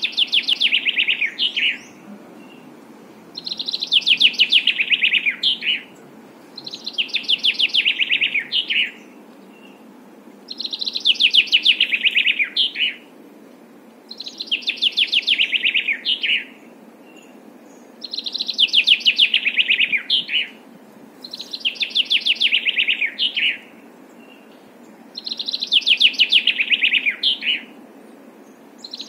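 A songbird singing the same fast trilled phrase over and over, each phrase about two seconds long with a short pause between, about eight times, over a faint steady hiss.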